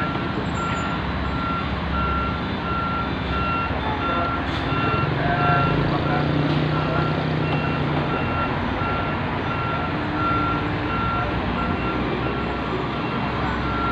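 Heavy-machinery back-up warning alarm beeping at an even, steady pace over the low running of a machine's engine. The engine note strengthens for a few seconds about midway.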